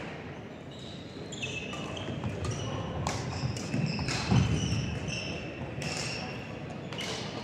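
Athletic shoes squeaking again and again on a gym floor as players move during a doubles rally, with several sharp hits and one heavy low thud a little past the middle, the loudest sound.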